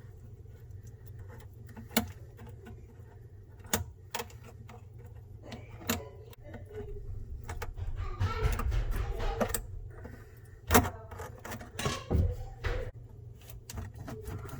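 Dishwasher hose connection being unscrewed from a garbage disposal's inlet: scattered clicks and knocks of the fitting and tool, with a longer rustling scrape about eight seconds in.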